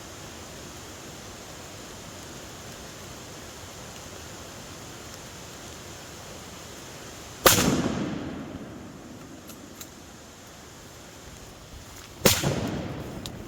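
Two rifle shots about five seconds apart, each a sharp crack followed by a long rolling echo that dies away over a second or two, over the steady rush of a waterfall.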